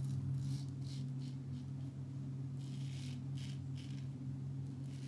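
Edwin Jagger double-edge safety razor scraping through lather and stubble on the neck in several short strokes, in two groups with a pause between them, over a steady low hum.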